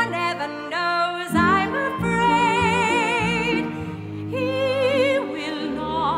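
A woman singing a musical-theatre song in a classically trained voice, holding long notes with a strong vibrato over sustained instrumental accompaniment.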